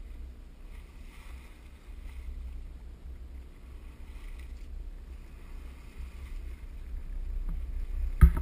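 Wind buffeting the camera microphone in a steady low rumble, over a faint hiss of water streaming past the sailboat's hull. Near the end come a few loud, sharp knocks.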